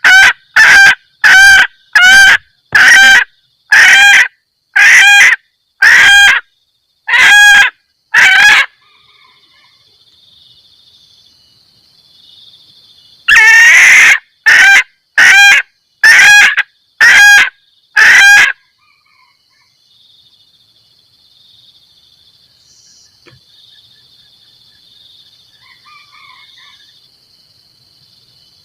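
Female junglefowl giving short, loud cackling 'kekkek' calls about once a second, the mating call used as a lure to draw in males. The calls come in two runs, the second opening with one longer call. In the long pauses there is only a faint, steady high hum.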